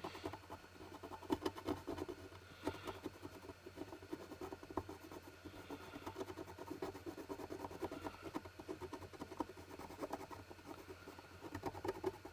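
Mechanical pencil with soft lead scratching in quick, irregular strokes along the engraved grooves of a wooden box lid, shading in a carved logo. The strokes grow a little louder near the end.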